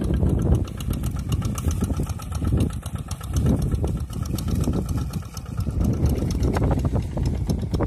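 Single-cylinder diesel engine of a Quick G1000 two-wheel hand tractor chugging steadily with a rapid, even knock while it tills a flooded rice field.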